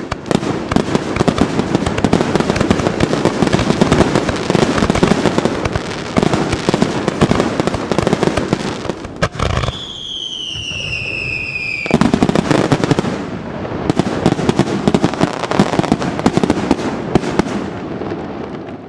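Fireworks display at full barrage: a dense, rapid rattle of bursts and crackling reports. About ten seconds in it thins out and a falling whistle sounds for about two seconds. Then the dense bursts resume and die away at the end.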